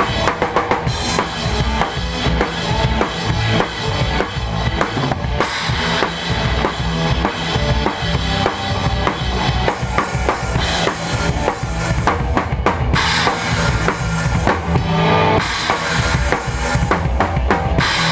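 Live rock band playing loud, with the drum kit up front: kick drum, snare and cymbal hits over distorted guitar and bass.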